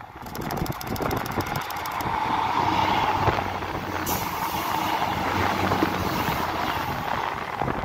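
ScotRail diesel multiple unit passing directly underneath, its underfloor diesel engine and wheels on the rails building over the first two seconds to a loud, steady rumble that holds as the coaches go by.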